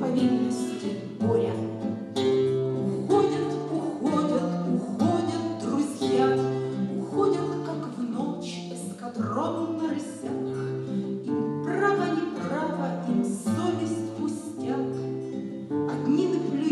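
A woman singing a song to her own classical guitar accompaniment, the guitar playing chords in a steady, even rhythm.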